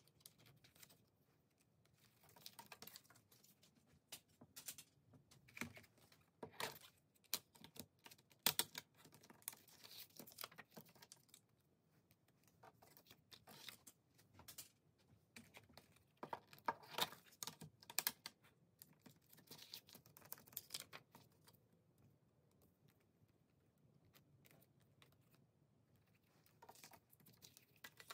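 Plastic CD jewel cases and photocards being handled on a table: a run of scattered light clicks and clacks, thinning out to a quiet stretch before a few more near the end.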